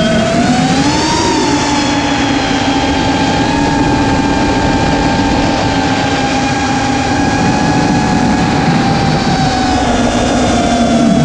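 Eachine Wizard X220 FPV quadcopter's brushless motors and propellers whining in flight, heard from on board. The pitch rises about a second in as throttle comes up, holds steady, and drops a little near the end, over a constant rush of air and propwash noise.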